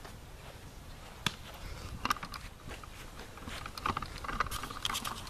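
Wind rumbling on the microphone outdoors, with a few sharp clicks about a second in, around two seconds and near four seconds.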